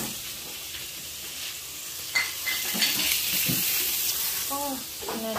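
Chicken pieces frying in hot oil in a pan, a steady sizzle, with a couple of sharp metal clinks about two seconds in. A brief voice near the end.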